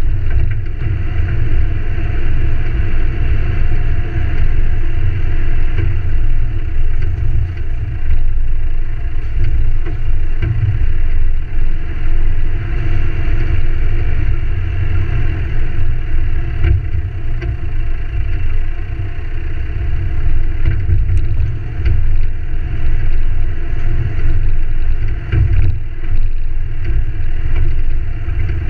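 Ford Ranger driving along a rough dirt forest track: a steady, loud low rumble of engine and tyres on the track, with occasional knocks and rattles from bumps.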